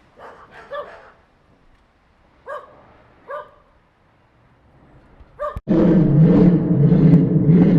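A dog barking in single and paired barks, then about five and a half seconds in a sudden cut to a much louder, deep, heavily processed version of the barks layered over a low drone, pulsing about twice a second.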